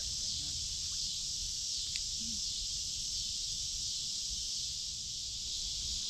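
A dense insect chorus, such as crickets and katydids, making a steady high-pitched drone that never lets up, over a faint low rumble, with one small click about two seconds in.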